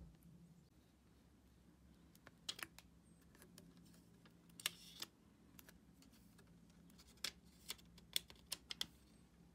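Light sharp clicks and crackles of hands handling a clear screen protector and its plastic film and guide stickers, scattered at first, then a quick bunch of clicks near the end.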